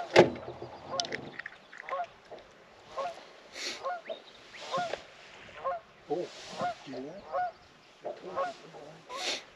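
Geese honking over and over, a short hooked call about once or twice a second. A sharp knock near the very start is the loudest sound.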